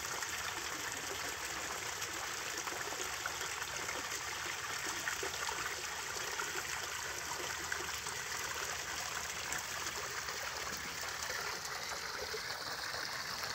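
Water from the pond filter's outflow steadily trickling and splashing into a garden pond.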